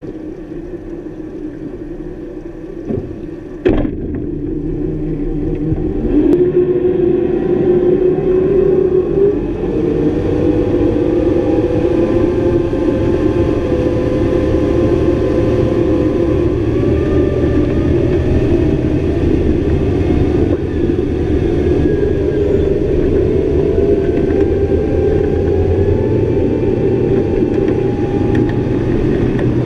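Twin Honda 225 hp V6 four-stroke outboard motors running, with a sharp knock about four seconds in. The engines rise in pitch over the next few seconds as they are throttled up, then run steadily at speed over the rush of the wake.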